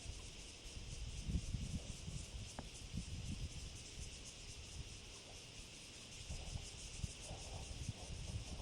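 Steady, high-pitched chorus of insects with a fast even pulse, over low gusts of wind buffeting the microphone.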